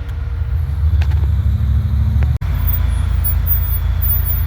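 Off-road truck engine running with a deep, steady rumble, the revs rising slightly through the first half. The sound drops out for an instant a little past halfway.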